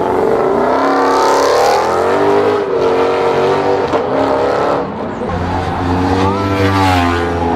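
Car engines revving hard and accelerating away, their pitch climbing and dropping several times as the cars pull off; a deeper engine note holds through the second half.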